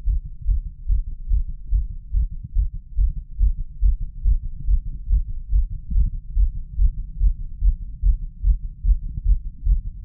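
A man's heartbeat heard through a stethoscope on the chest: forceful, regular lub-dub thumps, about one beat every three-quarters of a second.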